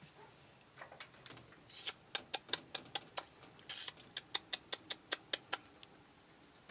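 A rapid run of sharp clicks, about five a second, starting a little under two seconds in and lasting about four seconds.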